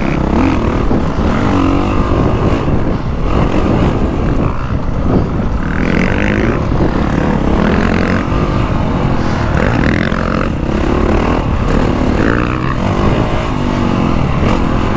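Honda CRF450R's single-cylinder four-stroke engine revving up and down repeatedly under throttle as the bike is ridden on a dirt motocross track, with heavy wind noise on the microphone.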